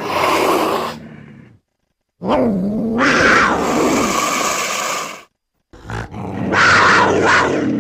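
Designed creature calls for a cactus cat, built from lynx, bobcat, cougar and house cat recordings: growling roars. One call fades out in the first second and a half, a long one of about three seconds follows, and another starts about six seconds in.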